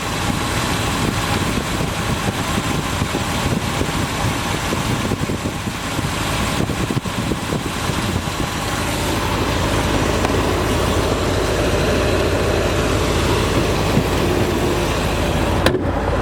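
1967 Corvette's 427 cubic-inch, 390-horsepower big-block V8 idling steadily, with a low rumble that grows a little louder about halfway through.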